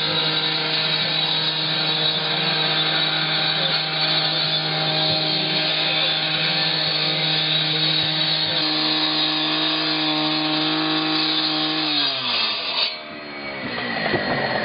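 A power saw running steadily at high speed, as when cutting into a metal tank; about twelve seconds in it winds down with a falling pitch, then speeds up again near the end.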